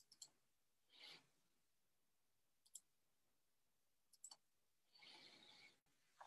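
Near silence, broken by a few faint sharp clicks and two soft hissing rustles, a short one about a second in and a longer one near the end.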